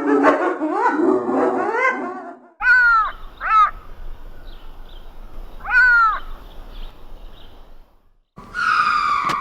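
Animal calls in several clips. A pitched, wavering call comes first, then a few short calls with a clear pitch that rise and fall, and a new, louder call begins near the end.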